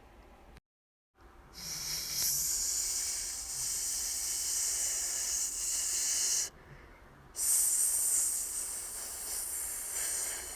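A person hissing a long, sharp 'sssss' through the teeth, twice: one hiss of about five seconds, a short break, then a second hiss that runs on.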